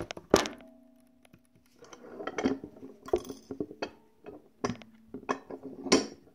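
Benchtop snap-button hand press coming down to set a snap in fabric: a sharp metal clack with a ringing tone that lingers for over a second. Then a run of small metal clicks and clatter as the press and snap parts are handled, with another loud clack near the end.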